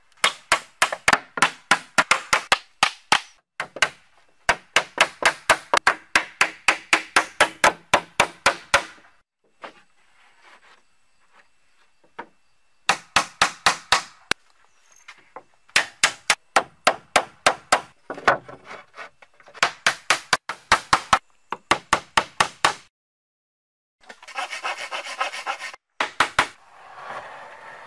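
Hatchet used as a hammer, driving nails into old wooden planks: runs of quick, sharp blows, about four a second, in several bursts with short pauses between. Near the end a short stretch of scraping noise on the wood.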